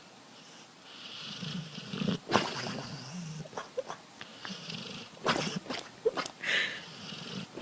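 A dog snoring: repeated raspy breaths over a low purr-like rumble. A few sharp clicks or knocks cut in, the loudest about two seconds in.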